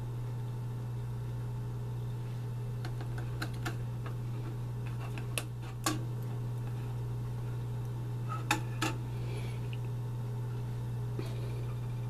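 A steady low hum, with a handful of light clicks and taps from wooden sticks knocking against a small stainless steel pot of molten pine pitch as it is stirred and scraped; the sharpest taps come in pairs about halfway and two-thirds of the way through.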